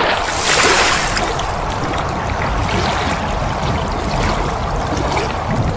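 Sound effect of rushing, pouring water, steady and loud, a little stronger in the first second.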